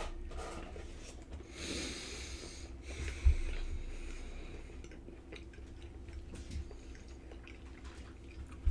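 People quietly chewing Pop-Tart pastry and breathing through the nose, with one breath lasting about a second just under two seconds in. A single soft thump comes a little after three seconds.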